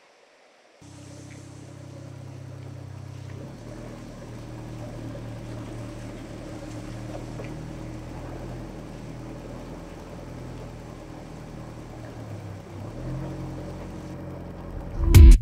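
Open-cockpit sports car's engine running at low revs as the car pulls slowly away. The sound cuts in abruptly about a second in and stays steady, with small changes in pitch around three seconds and again near thirteen seconds.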